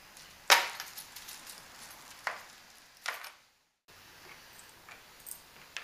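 Sharp clinks and knocks of small mounting hardware (stainless bolts, washers, wing nuts) being handled against the kayak's motor mounting plate, three distinct strikes with the first the loudest, then a few faint ticks.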